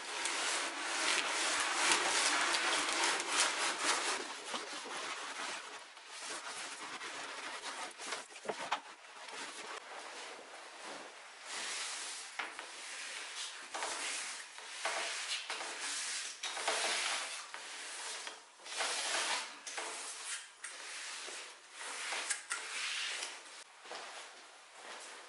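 A clothes iron sliding back and forth over a thin wood veneer sheet, pressing it onto a cabinet top, for the first few seconds. After that, a damp sponge is rubbed over the veneer in separate strokes; the wetting shows up any areas that have not bonded.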